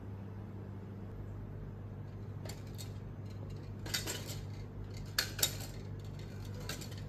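A few light clicks and clinks, the loudest two in quick succession about five seconds in, as a hand handles a white Ferris-wheel photo frame ornament, over a steady low hum.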